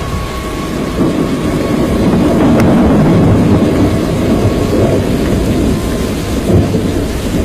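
Loud rumbling storm noise, thunder with rain, swelling over the first few seconds and easing toward the end.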